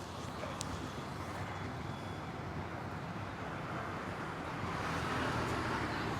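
Street traffic noise: a steady rumble of passing vehicles that swells louder about three-quarters of the way through.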